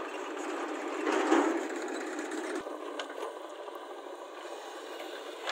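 A JCB backhoe loader's diesel engine running steadily as it digs soil with the rear bucket and lifts the load, with a louder burst about a second in.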